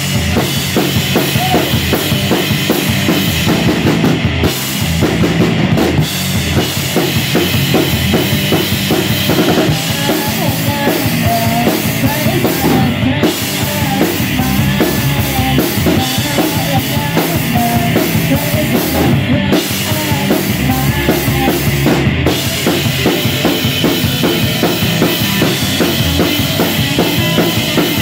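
A live rock band playing: electric guitars over a full drum kit with bass drum, snare and cymbals. A wavering higher melody line rises above the band through the middle of the passage.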